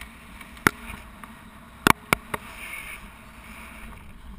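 Airflow rushing over a GoPro camera in its housing in paraglider flight, with several sharp knocks or clicks, two of them close together about two seconds in.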